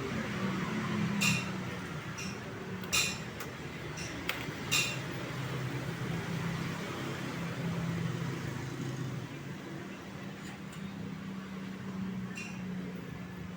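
A steady low hum with several sharp metallic clinks, most of them in the first five seconds and one more near the end.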